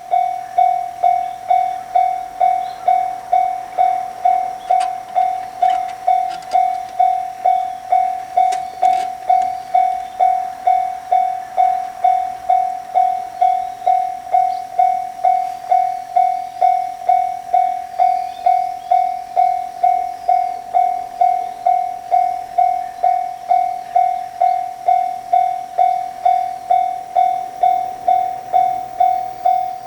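Japanese railroad crossing warning bell ringing steadily: an even, repeating "kan-kan" tone at about two strikes a second, signalling that a train is approaching.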